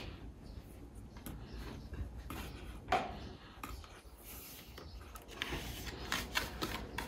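Small hands rubbing and patting the stiff cardboard flap of a lift-the-flap board book on a wooden table: faint scrapes and soft taps, with a sharper tap about three seconds in.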